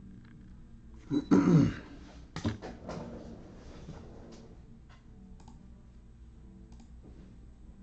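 A man clears his throat about a second in. A few sharp clicks and light taps follow as trading cards and a plastic top loader are handled on a table.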